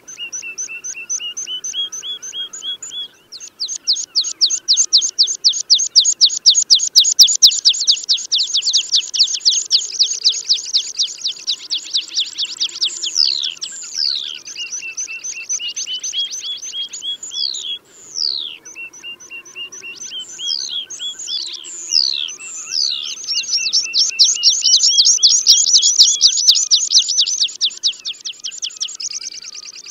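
Tree pipit song used as a hunting lure call: long, fast trills of rapidly repeated high notes alternating with slower, drawn-out notes that fall in pitch. There are two long trill runs, one in the first half and one near the end, with the falling notes in between.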